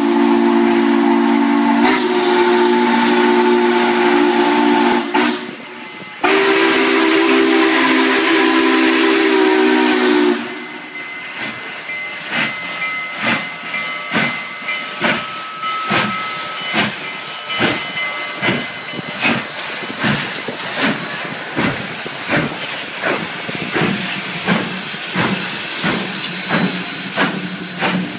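Union Pacific 844, a 4-8-4 steam locomotive, sounding its chime whistle in two long blasts, the first cutting off about five seconds in and the second about ten seconds in. The engine and tender then roll past close by, wheels clacking over the rails about twice a second.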